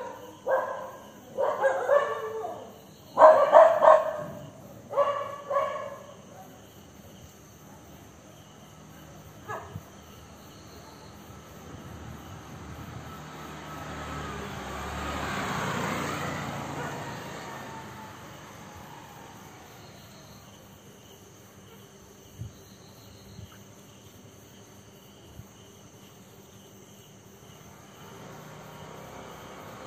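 Dog barking: several loud barks in quick groups over the first six seconds, and one short bark near ten seconds. About halfway through, a rushing noise swells and fades.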